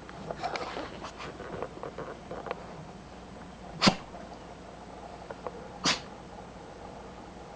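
A beagle sneezing twice, two sharp bursts about two seconds apart, after a run of small short noises in the first couple of seconds. The dog has been sneezing nonstop lately, which the owner wonders may be pollen allergy.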